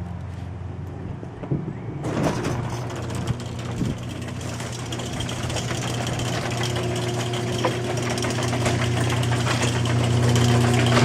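Garage door opener motor running steadily with a low hum, a rattle joining about two seconds in and the sound growing slowly louder.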